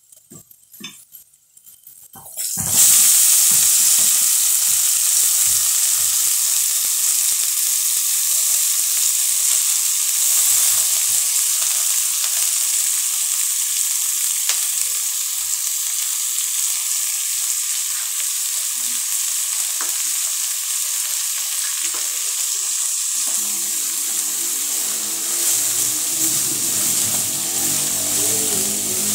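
Shredded cabbage sizzling loudly in hot oil with fried onions in a steel cooking pot, the sizzle starting suddenly about two and a half seconds in and holding steady. Near the end a wooden spoon stirs and scrapes through the cabbage.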